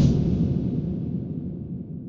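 Deep rumbling whoosh fading away steadily, a sound effect in the video's opening.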